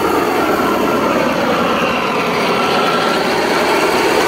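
A small engine running steadily, a continuous mechanical drone.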